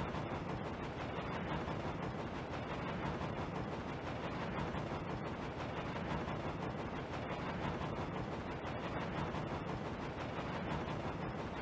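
Wooden toy train trucks rolling along wooden track: a steady rumble with many faint clicks.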